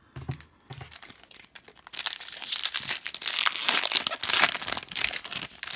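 Foil wrapper of a 2018-19 Upper Deck Series 1 hockey card pack being torn open and crinkled by hand. A few light handling clicks come first, then the crackling starts about two seconds in and goes on for about three and a half seconds.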